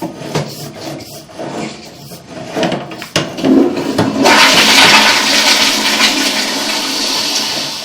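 Toilet flushing: after a few light clicks and knocks, water starts about three seconds in and becomes a loud, steady rush that tails off near the end.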